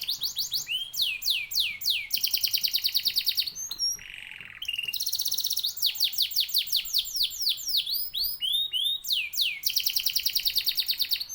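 Domestic canary singing a long song of fast trills and rolls of repeated notes, with downward-sweeping notes between them and a short lower buzzy phrase about four seconds in. This is a lure song ('pancingan') of the kind played to set other canaries singing.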